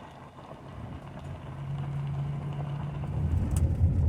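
Motor vehicle running, a low rumble that grows louder, with a steady low hum partway through.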